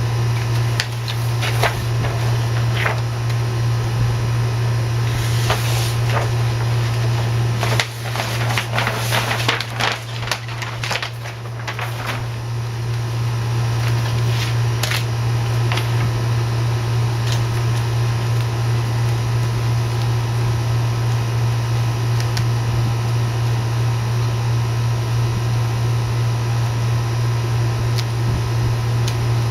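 Steady low hum, like a fan or air handler, throughout. About five seconds in come several seconds of rustling and light clicking handling noise, which stops around twelve seconds in.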